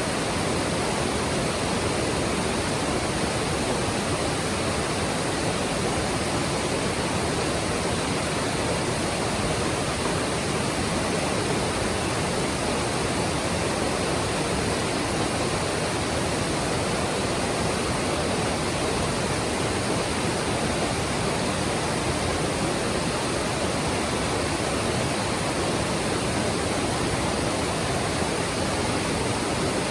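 Mountain stream rushing steadily over rocks, a constant even wash of water noise.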